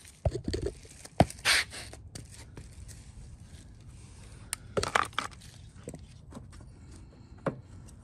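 Hands fitting parts on a small lawn mower engine while installing a new gasket: a few sharp clicks and knocks with a rustling scrape in the first two seconds, then another cluster of clicks and scrapes about five seconds in.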